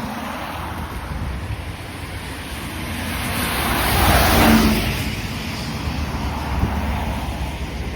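A road vehicle passing by: tyre and engine noise swells to a peak about halfway through, then fades, over a steady low rumble of traffic.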